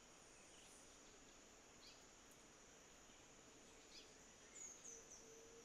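Faint steady high-pitched insect drone with a few short bird chirps: quick falling notes about two and four seconds in, and three high falling chirps near the end.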